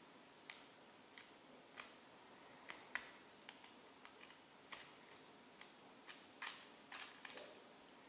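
Faint, irregular metallic clicks of a lock pick lifting and setting the spring-loaded pins inside a clear acrylic practice padlock during single pin picking. The clicks are a dozen or more, unevenly spaced, with the sharpest about three seconds in and a quick cluster near the end.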